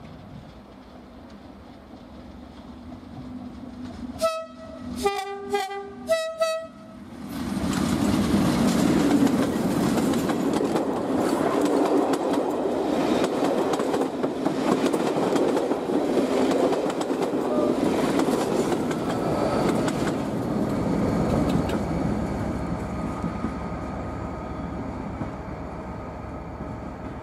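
Mainline diesel locomotive sounding its two-tone horn in three short blasts, high, low, high, as it approaches. It then passes close by hauling coaches, its engine and the wheels clattering over the rail joints, and fades away into the distance.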